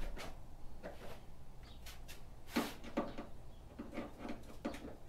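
Irregular small clicks and knocks of tools and mounting hardware being handled while a motorcycle windshield is fastened, the loudest about two and a half seconds in.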